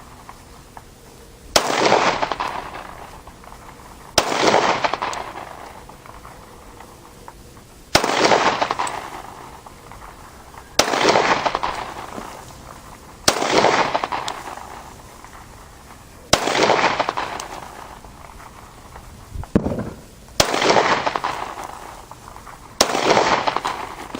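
Glock pistol fired eight times, unhurried, a few seconds between shots, heard from a distance; each shot is a sharp crack followed by a long echo fading over about two seconds.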